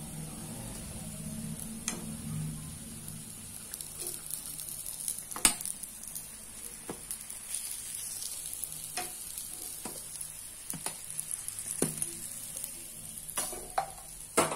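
Hot oil sizzling steadily in a deep frying pan as fried lauz (flour-and-semolina sweet biscuits) are lifted out with a wire skimmer. Sharp metal clicks and taps come every second or two, from the skimmer against the pan and steel plate.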